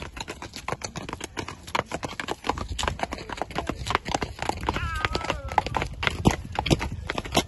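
Heavy draft horses' hooves clopping on a muddy dirt road as they are led at a walk, with many hoofbeats overlapping.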